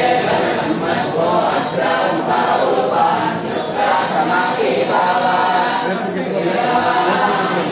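A group of voices chanting together in unison, continuous and unbroken, with no instruments standing out.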